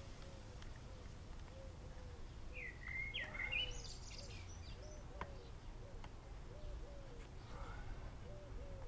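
Garden birds calling faintly over low outdoor background noise, with a short run of chirps about three seconds in and soft repeated low notes throughout. A light click sounds about five seconds in.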